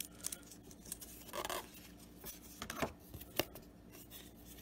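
Glossy baseball trading cards being handled and slid off one another in a stack: a handful of soft flicks and rustles at irregular moments, with one slightly longer rustle about a second and a half in.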